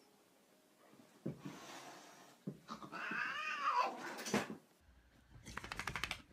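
A pet's drawn-out, wavering meow-like cry, rising and falling in pitch, starting a few seconds in. A short run of rapid clicks follows near the end.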